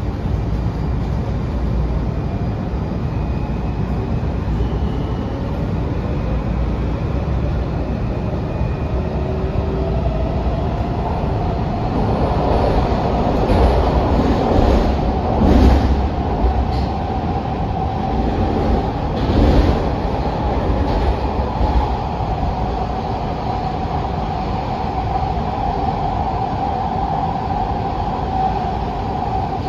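Washington Metro 6000-series railcar running from inside the car: a steady rumble of wheels on rail, with a faint whine rising slowly in pitch as the train gathers speed. A few louder knocks from the track come about halfway through.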